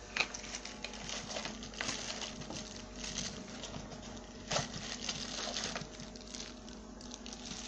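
Cardboard phone packaging being handled and opened: scattered rustles, scrapes and light taps, with a sharper knock just after the start and another about four and a half seconds in.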